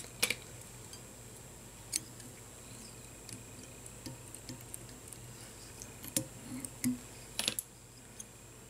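A few faint, scattered clicks and ticks from a metal whip-finish tool and tying thread as the thread is whip-finished around the head of a fly in a vise, over a faint steady hum.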